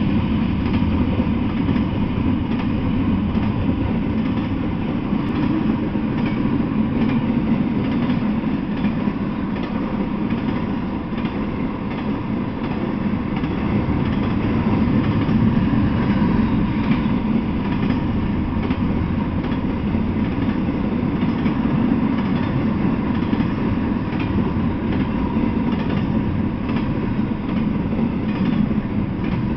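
Intermodal freight train of double-stack container well cars rolling steadily past: a continuous low rumble of steel wheels on the rails, with faint clacking over the rail joints.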